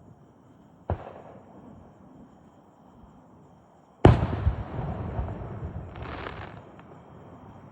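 Fireworks: two aerial shell bursts, a sharp bang about a second in and a much louder boom about four seconds in that rumbles and echoes on for a few seconds.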